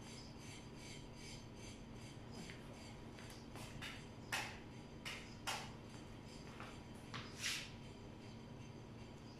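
Handling noise: faint scratchy rubbing, then a few louder short rustling swishes between about four and eight seconds in, over a faint steady hum.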